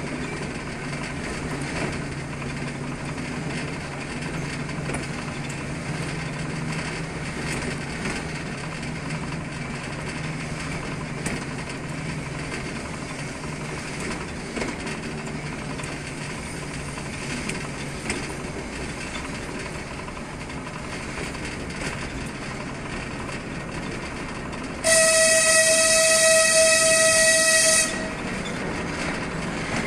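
TGM6V diesel shunting locomotive running along the track, its engine drone and wheel-on-rail noise steady, with one long horn blast of about three seconds near the end.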